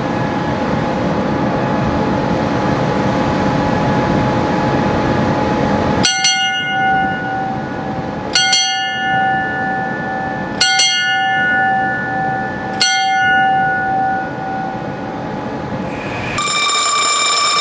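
A ship's deck bell is struck four times, about two seconds apart, each stroke ringing on with a clear, lingering tone. It is the ship's time signal for the half hour: three and a half 'glasses' rung on the bell with its short bell rope. Near the end a different steady, high-pitched tone begins.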